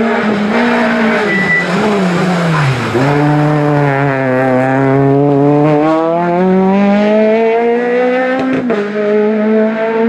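Peugeot 208 R2 rally car's four-cylinder engine: the revs drop over the first three seconds as it slows for a hairpin, with a brief tyre squeal, then climb in one long steady rise as it accelerates away. The engine note changes abruptly near the end.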